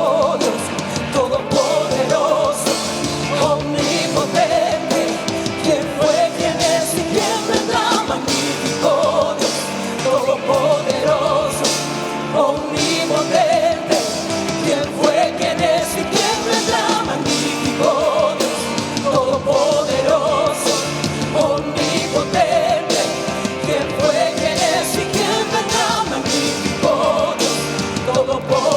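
Worship band playing a rock-style Christian song, a singing voice over a steady drum beat.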